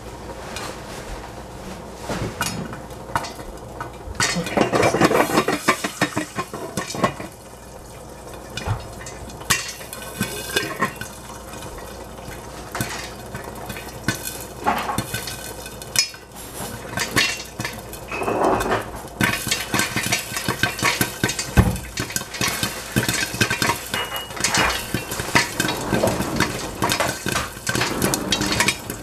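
Popcorn kernels popping in hot oil under the stainless steel lid of a skillet: irregular sharp pops and ticks against the metal, coming in dense flurries, over a steady frying sizzle.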